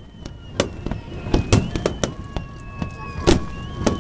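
Aerial firework shells bursting in a rapid, irregular series of sharp booms and cracks during a fireworks finale, about seven or eight reports in four seconds.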